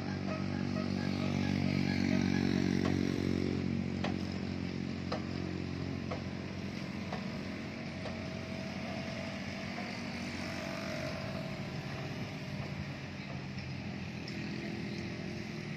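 Steady hum of a motor vehicle engine running close by, loudest about two to three seconds in, over outdoor traffic noise.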